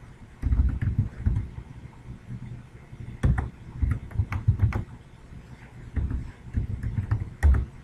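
Computer mouse clicking, with irregular dull low thumps and a few sharper clicks from the mouse and desk.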